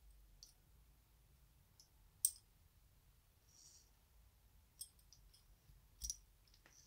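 Sparse small metal clicks from the slide of a 1908 Colt vest pocket pistol being handled and slid off the frame. A sharp click comes about two seconds in, another near five seconds, and a double click about six seconds in, with brief soft scrapes between.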